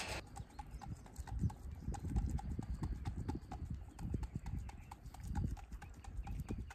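A young animal sucking at a feeding bottle: quick, rhythmic smacking clicks with irregular low knocks and bumps.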